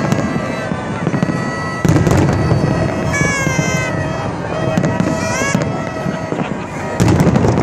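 Aerial fireworks going off, with heavy booms about two seconds in and again near the end, and high wavering whistles in between, over the noise of a crowd.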